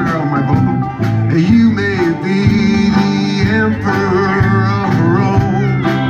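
A live country band plays with pedal steel guitar, banjo, guitars and drums, at a steady, full level with sliding notes.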